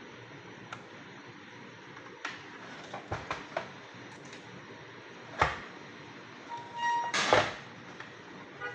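Scattered clicks and knocks of small parts and tools being handled during repair of a vacuum cleaner's motor, the sharpest about five and a half seconds in and a quick cluster near seven seconds, with a brief steady beep-like tone just before that cluster.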